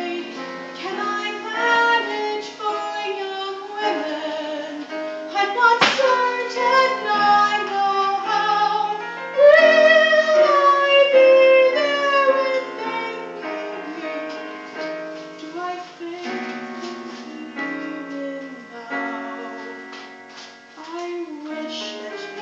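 A woman's solo voice singing a slow musical-theatre ballad over piano accompaniment, with vibrato on long held notes that are loudest about ten seconds in. A single sharp click cuts across it about six seconds in.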